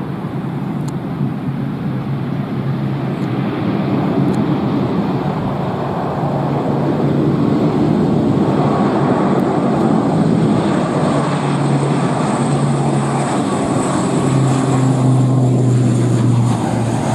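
ATR 72 twin turboprop engines at takeoff power, a steady propeller drone that grows louder as the aircraft rolls down the runway and lifts off.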